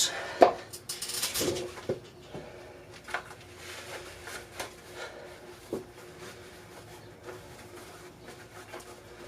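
Lifting wraps being taken off and wrapped again: fabric rubbing, a sharp knock about half a second in, a short rasp about a second in, then scattered small clicks.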